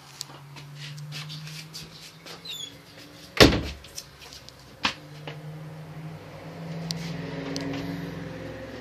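Scattered knocks and clicks inside a small camper, with one loud bang about three and a half seconds in and a sharper knock at about five seconds, over a faint steady hum.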